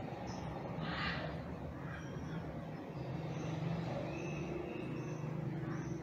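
Steady low rumble of city traffic, with a short hiss about a second in and a few faint, thin high chirps.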